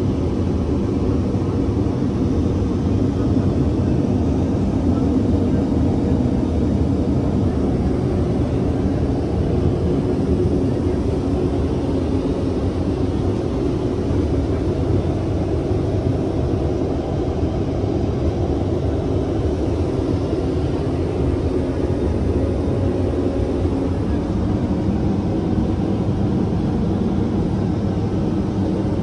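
Steady low drone inside the cabin of a Boeing 787-8 Dreamliner in flight, with no breaks or sudden sounds.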